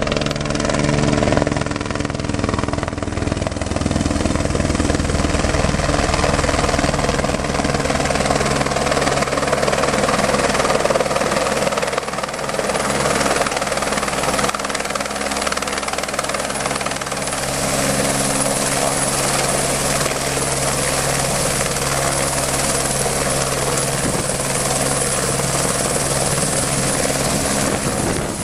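Light helicopter hovering close overhead with a concrete bucket slung beneath it on a long line. Its rotor makes a steady thrum, with a thin high whine above it.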